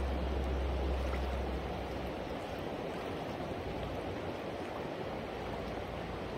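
River water flowing steadily, a river running high. A low rumble underneath fades out about two seconds in.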